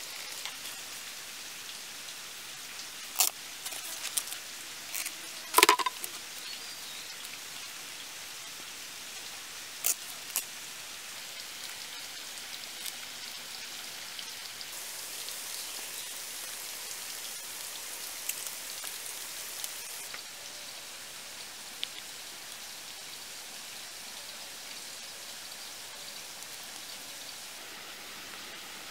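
Thin bamboo strips being worked by hand: a few sharp clicks and snaps, the loudest about five and a half seconds in, over a steady hiss.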